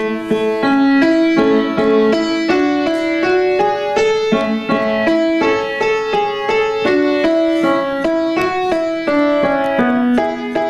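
Upright piano played by hand: a melody of single notes over lower accompanying notes, about two or three new notes a second.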